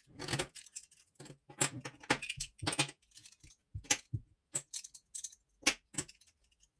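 Small metal accessories being handled: packs of staples and nails and an Allen key give irregular light clicks and rattles, several a second.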